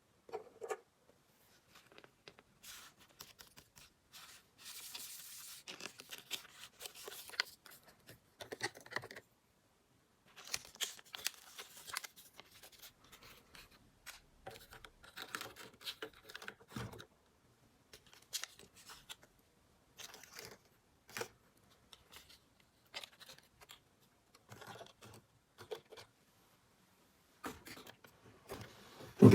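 Miniature plastic toy kitchen pieces and their packaging being handled up close: scattered small clicks, taps and rustles, with a few seconds of scratchy tearing-like rustling about five seconds in.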